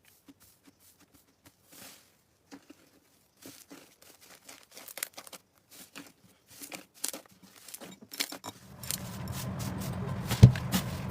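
Slime being squished and pulled by hand, making irregular crackles and sticky pops that grow denser. About nine seconds in a steady low hum comes in, and there is one louder thump near the end.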